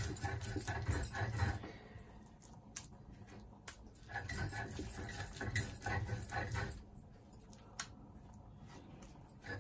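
Stone roller being rubbed back and forth over a flat stone grinding slab (shil-pata), grinding a moist dried-fish paste. There are two stretches of grinding, with a few sharp knocks of stone on stone between them.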